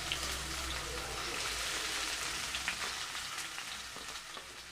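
Marinated chicken pieces sizzling as they fry in hot oil with onions and masala paste in a pan, with a few light knocks. The sizzle eases off a little toward the end.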